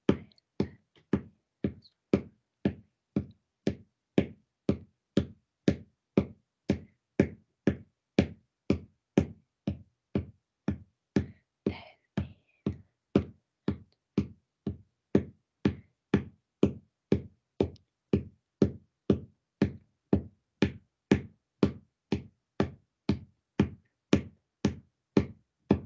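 A hand tapping out a steady beat, about two taps a second, keeping time for a song being sung unaccompanied.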